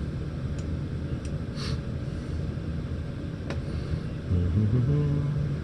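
Steady low background rumble with a few faint clicks, made as a laptop is worked. About four seconds in comes a short low hum that steps up in pitch.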